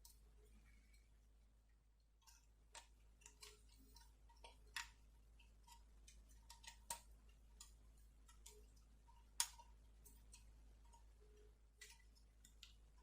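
Faint, irregular small clicks and taps, a few sharper than the rest, from hand work fitting wheels onto the metal axle of a diecast model car.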